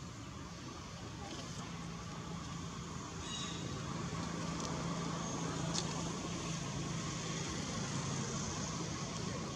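Steady outdoor background noise with a low motor-like hum that slowly grows louder, with a brief high chirp and a faint click partway through.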